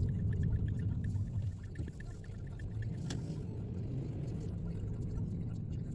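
Car engine and road rumble heard from inside the cabin while driving, heavier for the first couple of seconds, then steady. A faint rapid ticking runs over the first few seconds, with a single click about halfway through.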